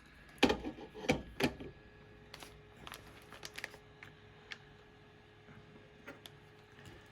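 Small repair tools and the opened phone handled on the workbench: three sharp knocks within the first second and a half, then lighter scattered clicks and taps.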